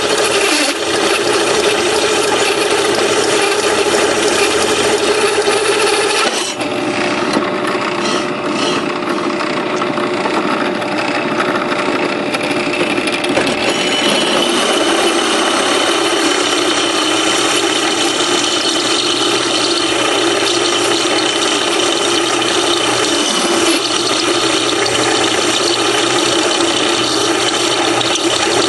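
Electric drill running under load as a step drill bit cuts a stud hole through a cast-iron brake rotor: a steady, continuous grinding, with a brief change in the sound about six seconds in.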